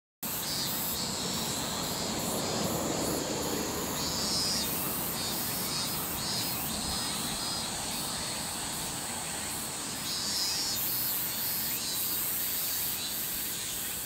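Cicadas singing in chorus: a high-pitched, steady whine with repeated swells of shrill buzzing, starting suddenly.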